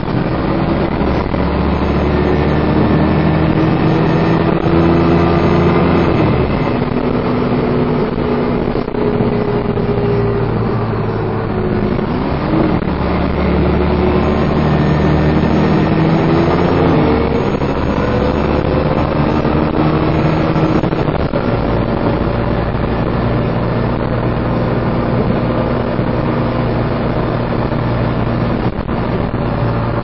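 Dennis Trident 2 double-decker bus engine heard from inside the lower deck while driven hard, with the hoover-like whine these buses are known for. The note climbs and drops at gear changes about six seconds in, around twelve seconds and around seventeen seconds, then climbs again and holds steady.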